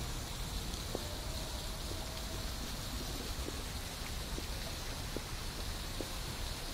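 Steady outdoor background noise picked up by a phone's microphone: an even hiss with a low rumble, and faint light ticks about once a second.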